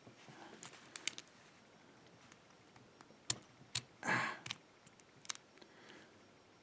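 Scattered small metal clicks and taps as the plug of a dimple lock cylinder is worked out of its housing with a pinning shoe holding the drivers in place. A short hiss comes about four seconds in.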